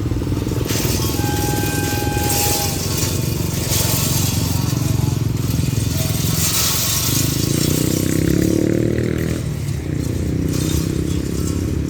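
Hitachi diesel locomotive 4519 running loudly as it hauls a train away, its engine note climbing about seven seconds in. Repeated bursts of hissing rattle come and go over the engine.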